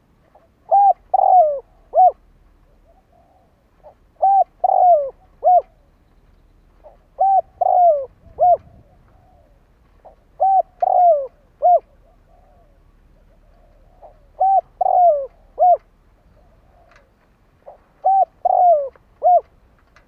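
Spotted dove cooing: six repeated three-note phrases about every three and a half seconds, each a short coo, a longer falling coo and a short coo. It is a decoy bird's call, used to draw wild doves.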